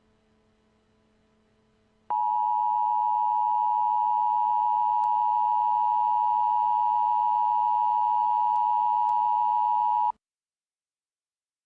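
Emergency Alert System attention signal: a loud, steady two-pitch electronic tone just under 1 kHz. It starts abruptly about two seconds in, after faint hiss, holds for about eight seconds and cuts off sharply.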